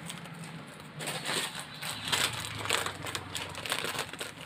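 Plastic packaging crinkling and rustling as hands rummage in a shopping bag and handle a plastic food pouch, a dense run of crackles starting about a second in.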